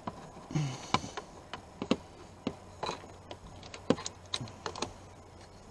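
Irregular light clicks and taps of plastic steering-wheel and airbag parts being handled and turned by hand, about a dozen at uneven spacing.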